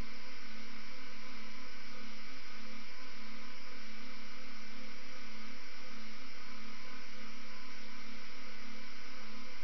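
Steady electronic hum with hiss over it, unchanging throughout: the background noise of a live airport webcam stream's audio feed, with no aircraft sound standing out.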